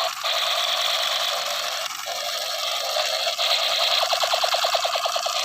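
Toy blaster gun's electronic sound effect through its small speaker: a steady harsh buzzing hiss, breaking into a fast stuttering run of about ten pulses a second near the end.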